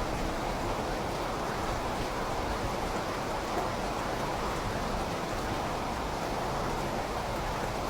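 Steady rain falling, an even, continuous hiss without single drops standing out.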